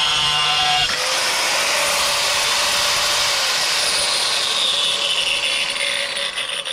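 Bosch PWS 700-115 angle grinder running with a steady whine; about a second in, its multi-purpose disc bites into scrap wood and a harsh grinding sound takes over, easing off near the end.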